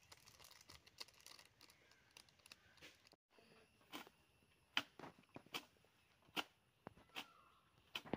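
Fingers crumbling spice powder in a small bowl make a faint crackly rustle. About three seconds in, this gives way to a hoe chopping and scraping into grassy soil, about seven sharp strokes roughly half a second to a second apart.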